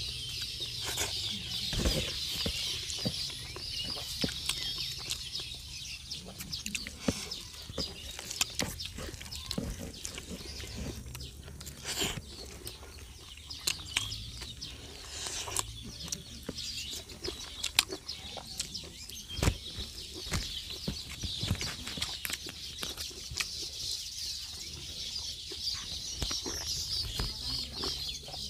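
Close-miked eating sounds: open-mouthed chewing, lip-smacking and sharp wet mouth clicks as liver curry and rice are eaten by hand. Underneath runs a steady high-pitched outdoor background.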